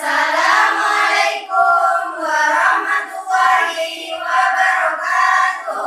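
A group of young voices chanting together in unison, drawn out in a sing-song way, phrase by phrase, and stopping just before the end.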